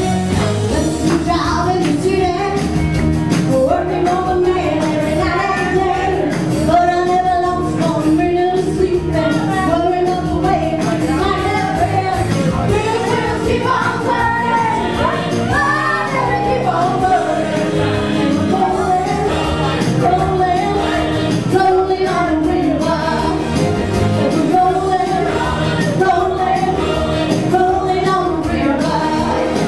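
A singer singing live into a handheld microphone over loud, continuous up-tempo pop-rock backing music.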